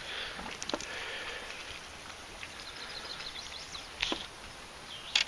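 Faint outdoor ambience with a few light knocks and clicks, about a second in and again around four seconds in, from a landing net and a freshly netted bass being handled in a boat.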